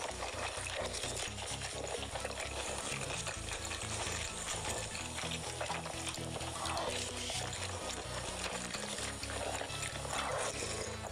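Close-miked eating of whole roast chicken: a continuous dense crackle of biting, tearing and chewing meat, over faint low background music.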